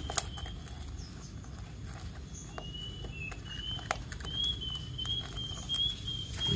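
Small clicks and scratches of a wire being twisted tight against the underside of an enamel pot, anchoring the plant in its pot. A thin, wavering high tone runs through the second half.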